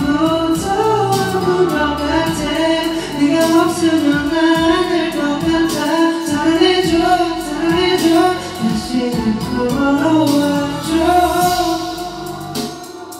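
A man singing a pop song into a handheld microphone over backing music. His voice eases off near the end.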